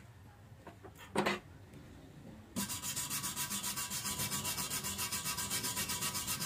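Steel wire brush scrubbed fast back and forth over a fresh stick-weld bead on square steel tube, cleaning off slag and spatter, in quick even strokes that start about two and a half seconds in. A brief scrape comes about a second in.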